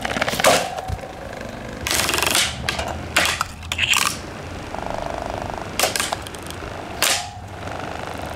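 A series of about six loud crashes and breaking, shattering blows as an old White-Westinghouse desk fan is smashed. Between the blows a buzzing hum comes from the still-running fan motor.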